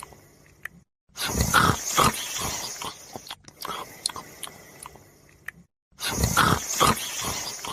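A dog snoring: two long, rough snores about five seconds apart.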